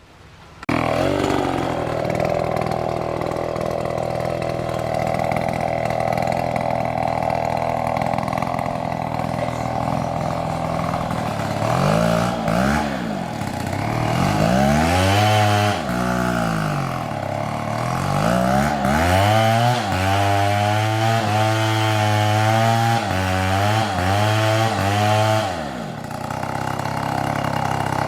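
Chainsaw engine running, starting suddenly just under a second in; from about halfway it revs up and down over and over, then drops back to a steadier run near the end.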